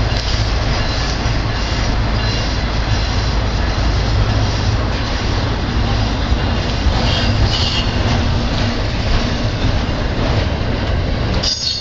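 Double-stack intermodal container cars of a CSX freight train rolling past: a steady, loud rumble and clatter of steel wheels on the rails, with a brief higher wheel squeal about seven seconds in.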